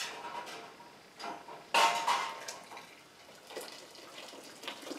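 Metal jar lifter clinking against a glass canning jar and the side of a water-bath canner, with hot water splashing and dripping as the jar is lifted out. The loudest ringing clatter comes about two seconds in, among smaller clinks.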